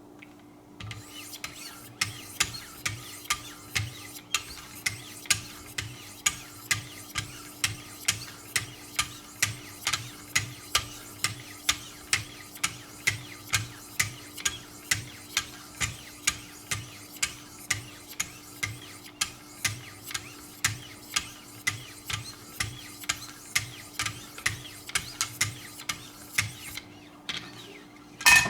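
1500-grit diamond stones of a Wicked Edge guided sharpening system stroking along a knife edge in an even rhythm, about two strokes a second. The strokes stop shortly before the end, and a single sharp click follows.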